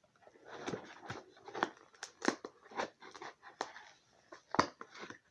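A cardboard shipping box being torn and pried open by hand: a run of irregular ripping and crackling noises, the sharpest near the end.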